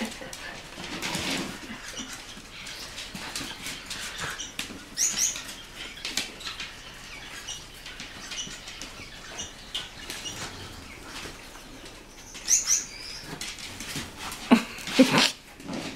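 Dogs moving about on a wooden floor around a fabric pen: scattered claw clicks and rustling, with a few louder knocks near the end.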